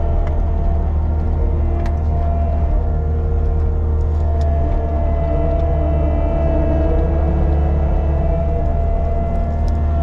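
Caterpillar 299D2 compact track loader's diesel engine running steadily, heard from inside the cab, with a deep rumble and a steady high whine over it, and a few light clicks.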